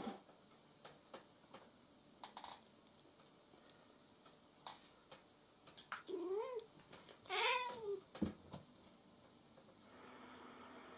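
A cat meows twice, a second or so apart, each call rising and then falling in pitch. A few faint taps come before the calls.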